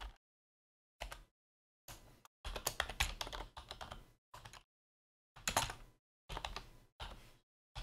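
Computer keyboard typing in short bursts of keystrokes, with stretches of dead silence between the bursts.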